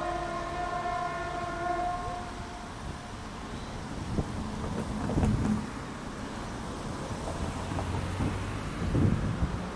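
Diesel multiple unit MR 4055 / MRD 4255 sounding a horn note that ends about two seconds in, then its engine and wheels rumbling as it pulls away, with a few thumps.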